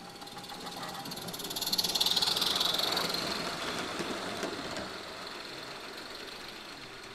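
A 16mm-scale live-steam garden railway locomotive running past close by: quick exhaust beats and hiss swell to a peak about two seconds in, then fade away over the next few seconds.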